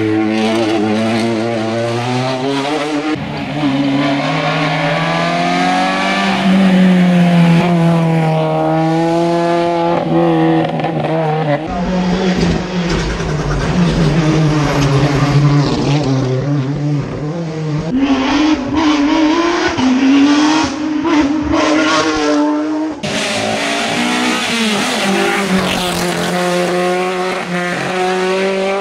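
Hill-climb race car engines at high revs, the pitch climbing through each gear and dropping back, over and over. The sound changes abruptly three times, as one run gives way to another.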